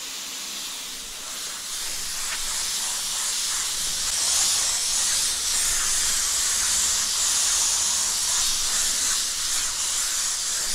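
Gravity-feed paint spray gun hissing steadily as compressed air atomises the last coat of silver basecoat. The hiss builds over the first few seconds and then holds.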